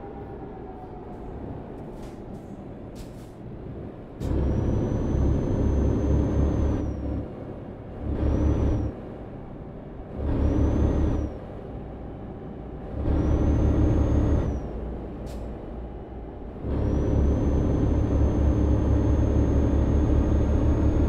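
Road vehicle noise on a drive: five loud stretches of low rumble, one to four seconds each, with a steady high whine over each stretch, and quieter rumble between them.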